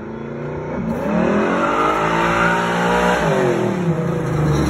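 Car engine accelerating hard: its pitch climbs for about two seconds, holds, then drops off a little after three seconds in, over a steady rushing hiss.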